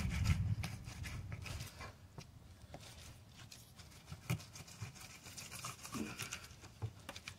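Fillet knife cutting along a bass's backbone toward the tail: faint, irregular scraping and crackling as the blade works through the fish. A low rumble fades out over the first second or two.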